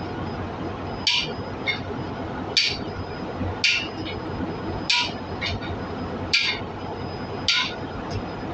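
Hammer blows on a steel seat driver, driving a new exhaust valve seat into its bore in a cylinder head. Six sharp, ringing metal-on-metal strikes come at an even pace, about one every second and a half, several followed by a lighter rebound tap.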